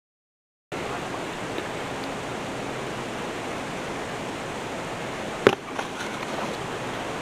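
A steady, even rushing hiss that starts abruptly just under a second in, with one sharp click about five and a half seconds in.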